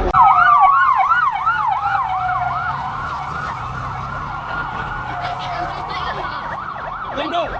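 Police sirens sounding together: a fast yelp and a slower wail that falls and then holds steady. The fast yelp drops away about three seconds in and comes back near the end.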